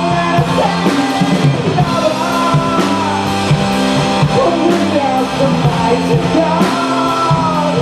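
Live rock band playing: drum kit with regular cymbal and snare hits under guitar and a gliding melodic line, between sung verses.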